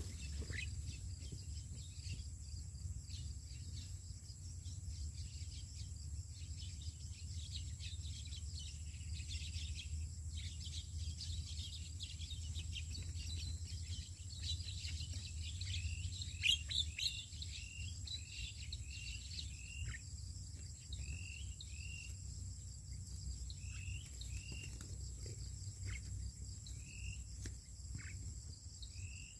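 Bird chirping: from about halfway, short rising-and-falling chirps repeat roughly once a second, over a steady thin high tone and a low rumble.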